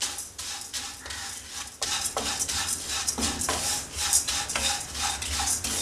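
Spatula stirring and tossing dry vermicelli around a nonstick wok as it roasts in a little ghee: quick repeated scraping and rustling strokes, louder from about two seconds in.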